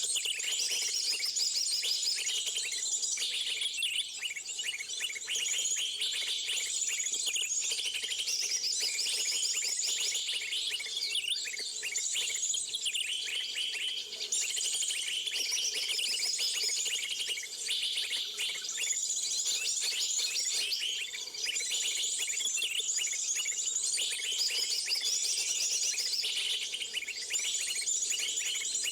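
Birds chirping densely and continuously, high-pitched, in quick phrases that repeat every second or two, the kind of calling used to lure birds in trapping.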